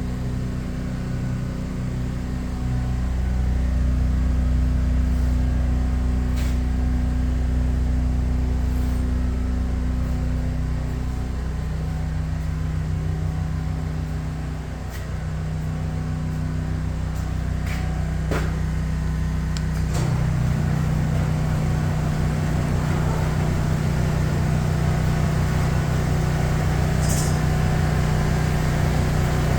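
Electric garage door opener motor running with a steady hum. A couple of sharp clicks come about two-thirds of the way through, after which the hum changes in pitch and keeps running.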